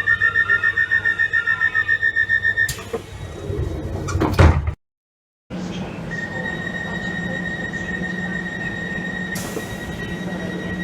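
Train door-closing alarm beeping rapidly at a high pitch, then the sliding doors running shut and closing with a thud about four and a half seconds in. After a short break, a steady high tone sounds over a low hum.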